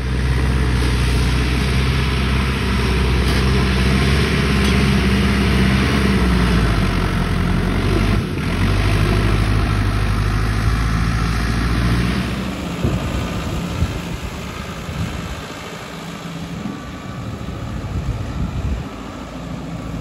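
Sonalika tractor's diesel engine running steadily under load as it pulls a loaded grain trolley, heard loud and close with a deep, even hum. About twelve seconds in, the sound drops to a quieter, rougher engine noise.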